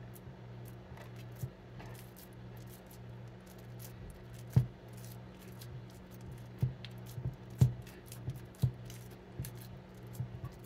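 Hands pulling at crumbly washed seitan dough on a wooden cutting board, with sharp taps and clicks of fingers and dough against the board, roughly one a second from about halfway through, over a steady low hum.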